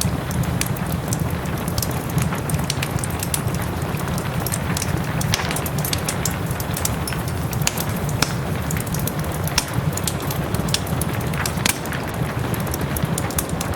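Wood fire crackling with frequent sharp, irregular pops over the steady hiss of soft rain and a low rumble.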